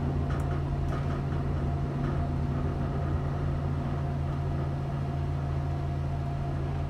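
Steady low hum inside an ÖBB Nightjet sleeping car as the train runs, with a faint steady high tone and a few light clicks near the start.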